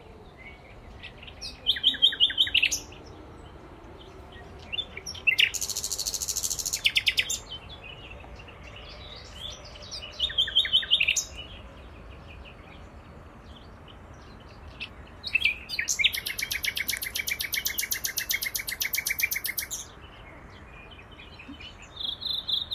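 Common nightingale singing in separate phrases a few seconds long with pauses between them. Several phrases are fast runs of rapidly repeated notes, and the longest, about four seconds, comes in the second half.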